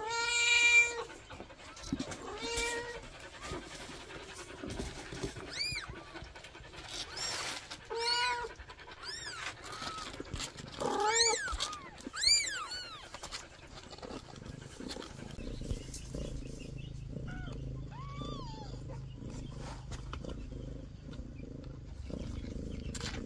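Newborn kittens mewing in a string of short high cries through the first half, the loudest right at the start. From about fifteen seconds in, a low steady purr takes over as the kittens settle in to nurse from the tabby mother cat.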